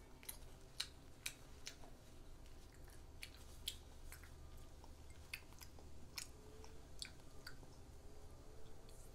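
A young child chewing mouthfuls of banh xeo, the crispy Vietnamese crepe, with irregular small sharp clicks and crunches of the mouth.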